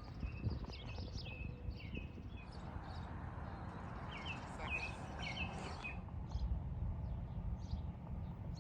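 Birds chirping in short, repeated notes, busiest through the middle, over a steady low rumble; a soft hiss rises alongside and stops about six seconds in.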